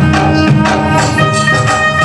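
Rajasthani devotional folk music played loud: sustained melody lines over a steady beat of frequent percussion strikes.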